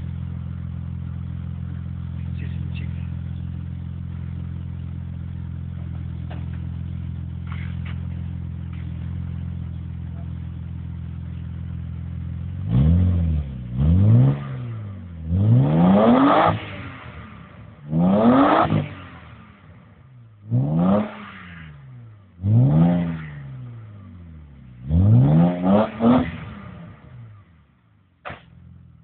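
BMW car engine idling steadily, then blipped hard about seven times, each rev rising quickly in pitch and falling back, with a last short blip near the end.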